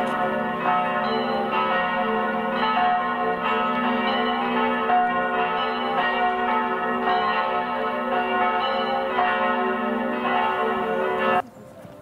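Church bells of Bebenhausen monastery ringing together in a full peal, many overlapping strikes blending into a continuous sound that cuts off suddenly near the end.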